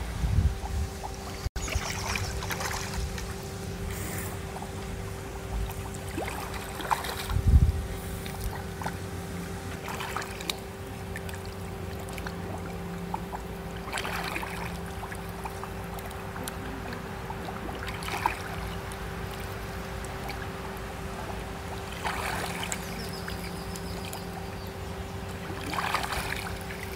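Pool water splashing as a swimmer kicks and pulls through the water, with separate splashes every few seconds over a steady low hum. There is one louder low bump about a quarter of the way in.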